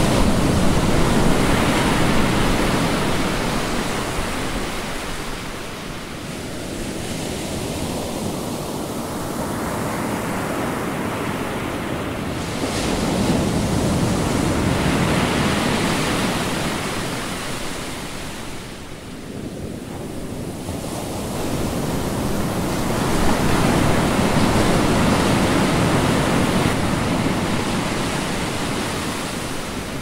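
Ocean surf breaking on a sandy beach: a steady wash of waves that swells and fades, with louder surges about a second in, around fourteen seconds and around twenty-four seconds.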